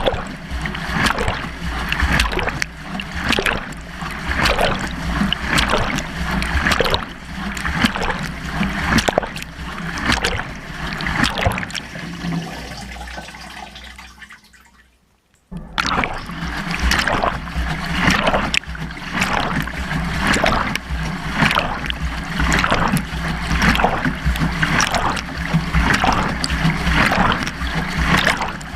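Water sloshing and splashing inside a Beko washing machine drum during the wash, heard from inside the tumbling drum, with repeated splashes and knocks. Just after halfway the sound dies away to near silence for about a second, then starts again suddenly as the drum resumes turning.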